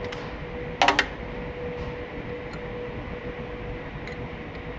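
Sharp metallic clicks, about three in quick succession about a second in, as a hand tool works on the thickness planer's cutterhead and knives, with a few faint ticks later. A steady machinery hum with a faint constant tone runs underneath.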